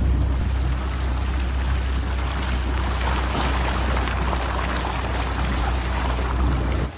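Muddy floodwater rushing and splashing against the side of a 4x4 as it wades through, over a steady low rumble. It cuts off abruptly just before the end.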